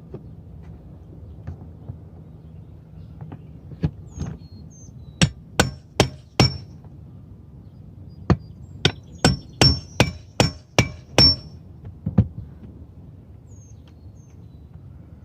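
Hammer blows on a metal gutter outlet, driving it down to sit as low as possible in a built-in gutter. Sharp strikes with a light metallic ring: a couple of single blows, then a quick run of four, then a faster run of about eight, and a last blow.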